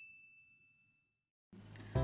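The ringing tail of a single bell-like ding, a title-card chime, fading out over the first half-second. Then near silence, with background music coming in faintly about a second and a half in and growing louder at the end.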